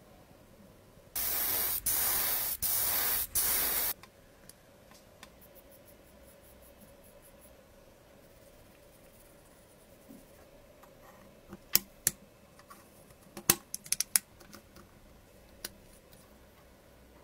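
Paint sprayed onto a small plastic model part in four short hissing bursts, one after another. Later come a scattering of small sharp clicks from tweezers handling tiny plastic parts.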